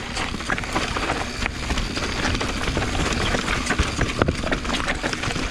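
Mountain bike rolling fast over rough singletrack: a steady rumble and hiss of tyres on dirt and rock, with constant rattling clicks and knocks from the bike, and one sharper knock about four seconds in.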